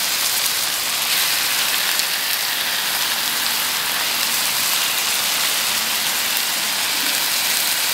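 Steady hissing sizzle of chili spice paste cooking in a wok on a portable gas stove.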